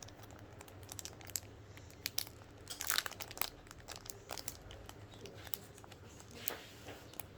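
Speed-cube packaging being handled and pried at while trying to get it open: scattered light clicks, taps and crinkling, with a louder rustle about three seconds in.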